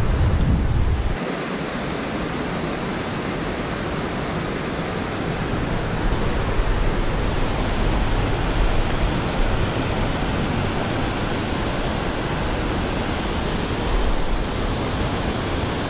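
Steady rush of river water pouring over a dam spillway and through the rocky rapids below it, with a low wind rumble on the microphone.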